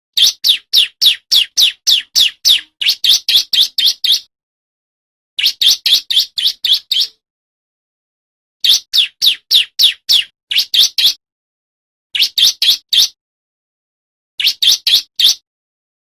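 Male bar-winged prinia (ciblek) singing in five phrases of rapid, evenly repeated sharp high notes, about four a second, with short silent pauses between phrases.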